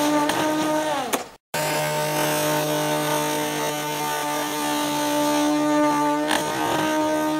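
Small 11.1 V brushless electric motor and propeller of an RC hovercraft running with a steady whine. About a second in, the pitch sags and the sound cuts out for a moment, then it picks up again and holds steady, with a brief dip and click near the end.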